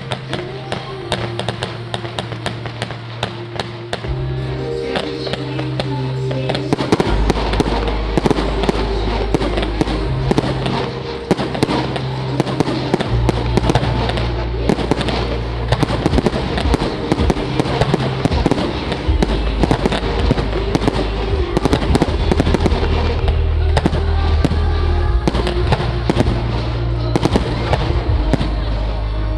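Fireworks display: a dense run of bangs and crackling bursts, thickening about seven seconds in, over music with a steady bass line.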